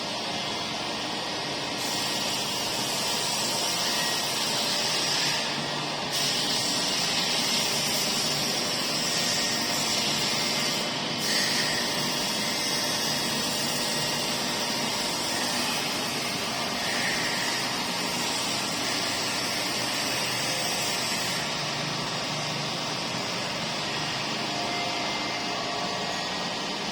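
Tool grinding machine at work on a carbide cutting tool: a steady machine hum with a high grinding hiss that starts about two seconds in, breaks off briefly twice, and stops a few seconds before the end.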